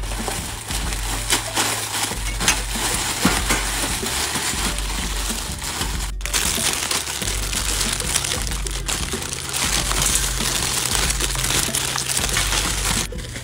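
Foil-lined plastic instant-noodle packets being torn open and crinkled, with a continuous crackle of many small clicks as dry noodle blocks and crumbs are shaken out.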